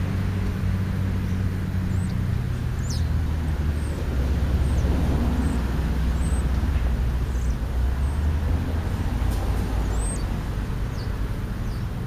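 Low, steady hum of an engine running, its pitch shifting slightly about two and four seconds in, with a few short high chirps of small birds scattered through it.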